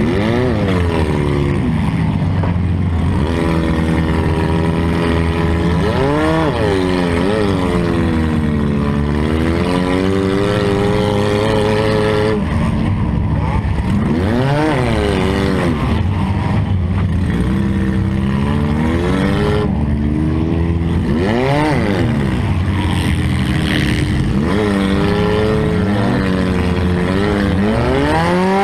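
Demolition derby car's engine revving up and falling back again and again, its note rising and dropping every few seconds over a steady low drone.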